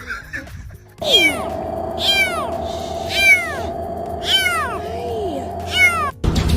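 A cat meowing about five times, each call sliding down in pitch, over a faint steady tone. The calls start suddenly about a second in and cut off abruptly near the end.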